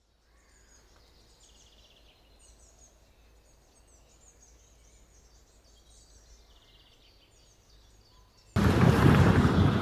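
Faint birdsong, many small chirps, over a low steady background rumble. About eight and a half seconds in, a loud rushing noise cuts in abruptly and lasts about a second.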